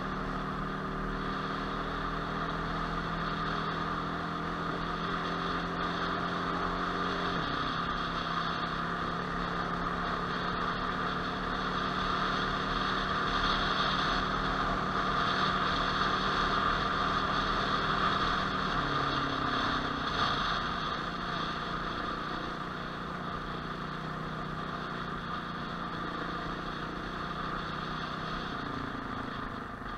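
Off-road motorcycle engine running steadily under way on a dirt trail. Its note steps down about a quarter of the way through, rises briefly and falls again around two-thirds through, and picks up again near the end.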